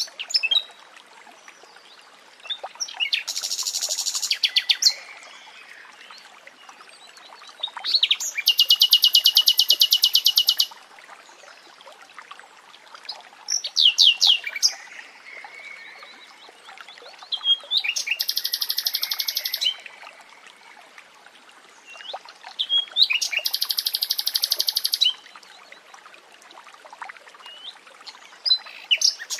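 Common nightingale singing: loud phrases of fast repeated notes, each lasting one to three seconds, with pauses of a few seconds between them.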